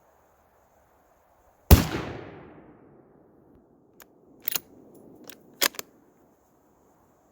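A single shot from a .223 Thompson Center Compass II Compact bolt-action rifle, its report fading out over about a second. A few seconds later come several short sharp clicks, the bolt being worked to chamber the next round.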